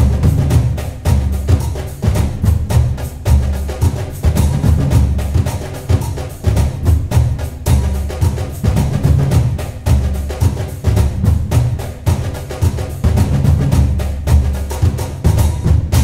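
Background music with a steady drum beat and heavy bass.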